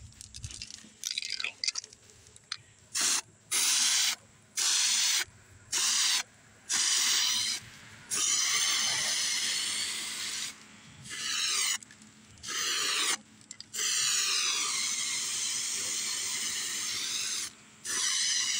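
SprayMax 2K epoxy primer aerosol can spraying, hissing in about five short bursts and then in longer passes of a second or more, the longest lasting over three seconds near the end, as the first coat goes onto bare metal.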